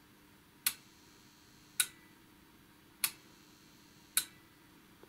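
Six-digit electromechanical counter of a vintage aircraft fatigue consumption indicator clicking as it steps on each input pulse: four sharp clicks a little over a second apart. The drive voltage is now high enough for it to count.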